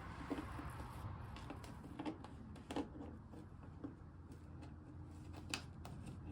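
A few faint, separate clicks and light taps from a T25 Torx driver and small screws being worked out of plastic trim, over a low steady background hum.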